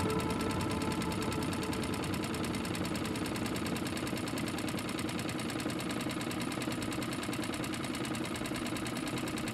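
Small Mercury outboard motor running steadily at a constant, even speed, pushing the boat along.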